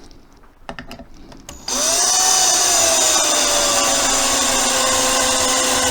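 Drill driving a screw through a wooden dowel peg into a block: a few light handling clicks, then the motor starts about two seconds in. Its whine jumps up and then sags slowly as the screw bites into the wood under load.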